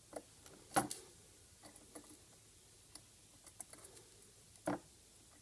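Scattered small clicks and taps of a gold necklace being set into a small clamp, with two louder knocks, one just under a second in and one near the end.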